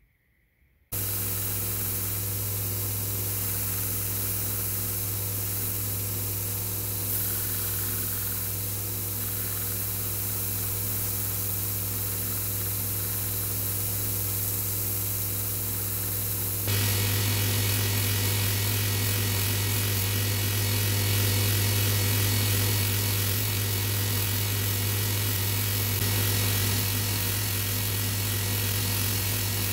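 Belt grinder running steadily with a strong hum while a red cedar handle scale is ground against the belt. It starts abruptly about a second in and gets a little louder and rougher just past halfway.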